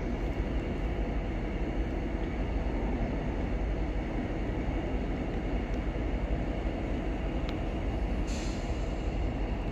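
VIA Rail passenger train rolling past, a steady low rumble of wheels on rails. A brief hiss comes about eight seconds in.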